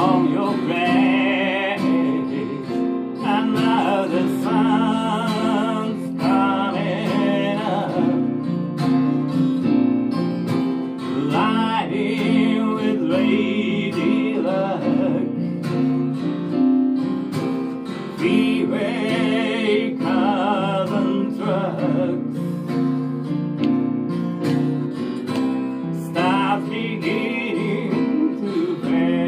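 Live acoustic duo: a steadily strummed acoustic guitar with keyboard accompaniment, and a man singing in phrases that come and go over it.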